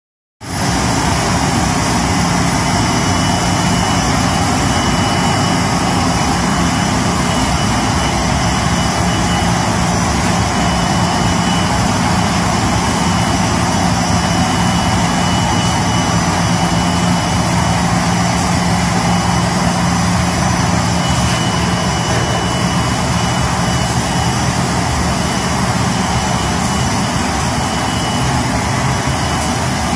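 MTM1080 metalized film laminating machine running: steady machine noise with a constant low hum and a thin high whine.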